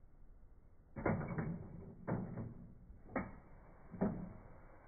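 Lionel 3665 Minuteman missile launcher car's roof doors being worked open and the missile raised: four sharp mechanical clunks about a second apart, each ringing briefly.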